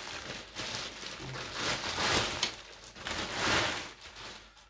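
Plastic bag crinkling and rustling in several swells as bagged golf irons are handled inside it.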